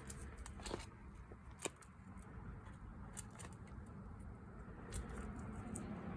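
Faint hand-work noises at an ATV's rear brake hub: scattered small clicks and light rubbing as grease is worked around the hub seal.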